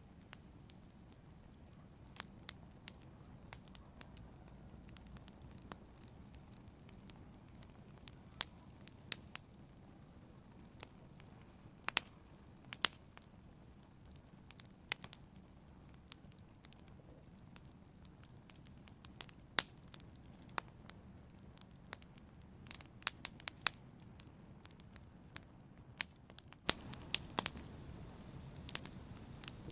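Logs burning in a fireplace, crackling with irregular sharp pops over a low steady rumble of flames. About 27 s in, the low rumble steps up abruptly and the pops come closer together.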